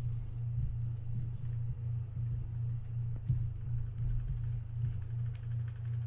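Steady low hum, with faint light ticks and a slightly louder tap about three seconds in as small metal parts of a baitcasting reel are worked by hand.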